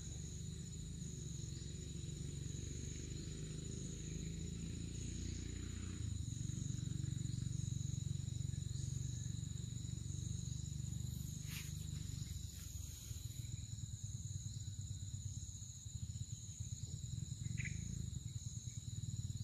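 Insects trilling steadily in two high-pitched tones, with a low rumble underneath and a single sharp click partway through.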